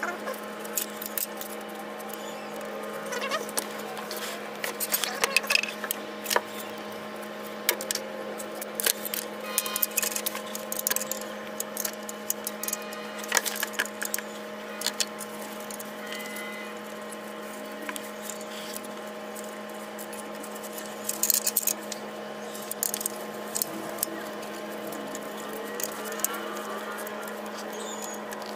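Irregular metal clicks and taps of hand tools working on the rocker arms of a Detroit DD15 diesel during a valve lash adjustment, over a steady background hum.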